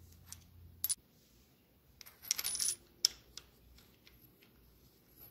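Light metallic clinks and clicks as a washer and nut are fitted by hand onto the centrifugal oil filter's shaft on a motorcycle crankshaft: a couple of clicks about a second in, a cluster of clinks around two to three seconds in with one sharp click, then faint ticks.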